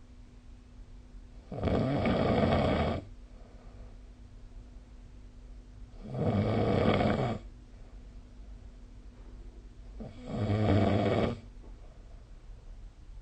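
A person snoring in a steady rhythm: three loud snores, each lasting over a second, about four seconds apart.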